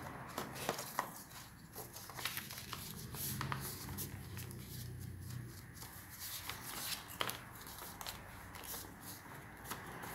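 A sheet of paper rustling and crackling as hands fold, crease and turn it, with irregular sharp crinkles.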